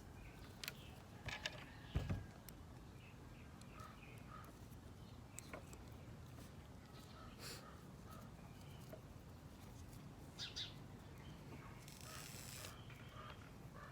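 Faint calls from backyard chickens, scattered through a quiet outdoor background, with a soft knock about two seconds in.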